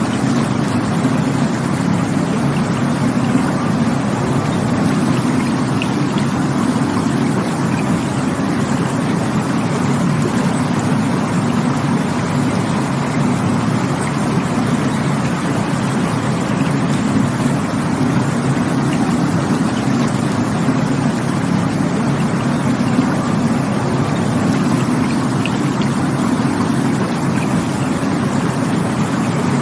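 Rushing water running steadily and unbroken, with a deep low rush.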